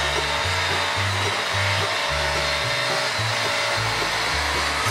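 Handheld cordless power tool running steadily with a continuous whirring hiss, working a rusted bolt off the motorcycle; it cuts off at the very end. Background music with a repeating bass line plays underneath.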